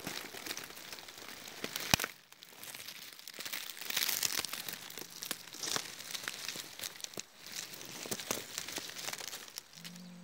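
Dry fern fronds and dead leaves crackling and rustling as they are pushed through and pressed aside, with one sharp crack about two seconds in.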